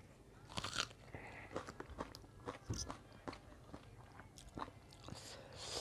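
Close mouth sounds of biting into and chewing a piece of raw onion: irregular crisp crunches and wet chewing, with a sharp crunch a little under a second in and another near the end.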